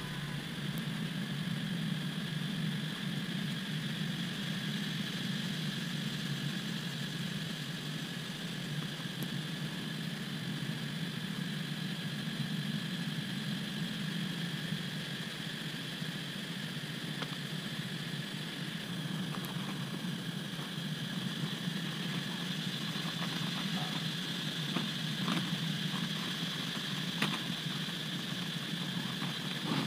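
Steady buzzing of a swarm of dwarf honey bees (ong ruồi, Apis florea) around their disturbed nest, with a high insect drone behind it. A few light clicks of handling in the last third.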